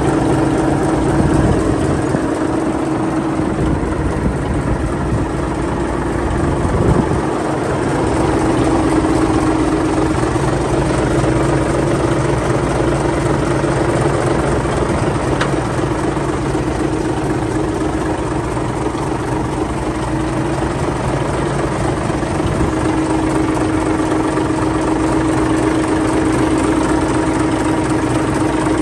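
1977 Caterpillar D8K dozer's six-cylinder diesel engine idling steadily.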